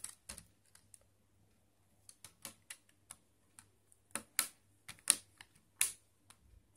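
Bendable plastic back cover of a Wickedleak Wammy One smartphone being pressed and snapped back onto the phone: a series of sharp plastic clicks, loudest in a cluster about four to six seconds in.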